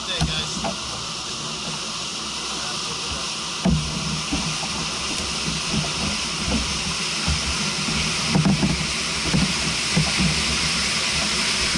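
Wind buffeting the camera microphone with a steady hiss, over choppy water lapping and slapping against the plastic kayak hull in irregular low thumps that grow stronger from about four seconds in.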